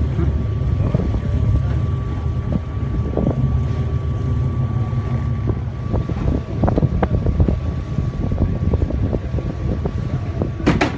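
A fishing trawler's diesel engine running steadily at low speed: a deep, even hum with a thin steady whine above it, and wind buffeting the microphone. A single sharp knock comes near the end.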